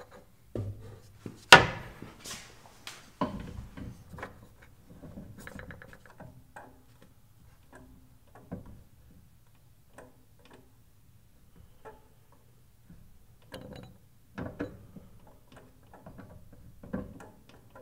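Clicks and knocks from a table saw's blade-height crank mechanism as a dado stack is lowered against a metal height gauge. There is a sharp click about a second and a half in, a quick run of ticks around five to six seconds, and more scattered clicks near the end.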